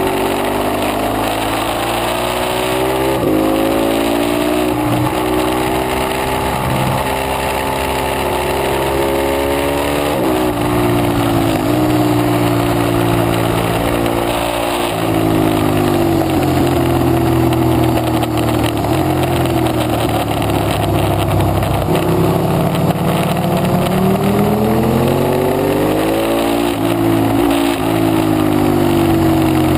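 Ducati 848 Evo's 849 cc L-twin engine, heard onboard at speed over wind rush. It climbs in pitch through several quick upshifts over the first ten seconds, drops in steps on downshifts, holds lower revs through the middle, then climbs through upshifts again near the end.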